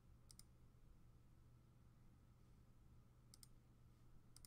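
Computer mouse clicking three times, each click a quick press-and-release pair, faint against a low steady hum.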